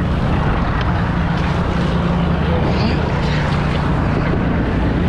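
Outboard motor running steadily at low speed, a constant low hum, under the splash and slosh of choppy water against the hulls and wind on the microphone.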